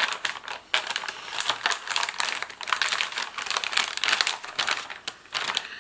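Plastic ration packaging crinkling and rustling as it is handled, a dense run of irregular crackles that eases off briefly near the end.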